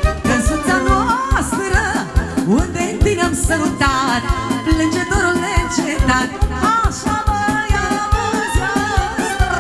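Live Romanian folk dance music: a violin leads a fast, ornamented tune over held accordion chords and a steady, quick beat.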